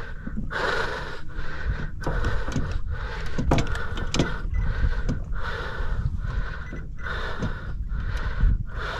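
A man panting hard and rhythmically, about one and a half breaths a second, from the strain of hauling in a hard-pulling fish, over a low steady rumble.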